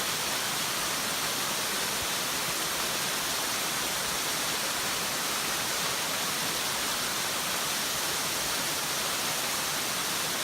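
A 13 m waterfall's falling water rushing in a steady, even hiss.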